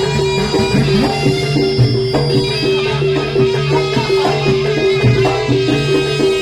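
Live jaranan gamelan music: drums and quickly repeated metallic notes, with a high melody line over them.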